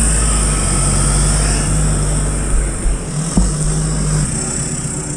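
Toyota off-road 4x4's engine running at low revs as it crawls through mud, with a few sharp knocks about halfway through.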